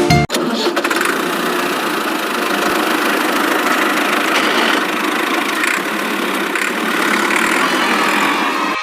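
A toy vehicle's engine-like running noise, steady and without deep bass, starting just after a brief silence and cutting off abruptly near the end.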